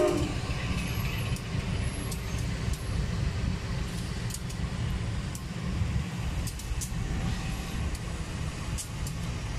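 CC 203 diesel-electric locomotive running as it rolls slowly past hauling passenger coaches: a steady low engine and wheel rumble, with a few short, faint high squeaks now and then.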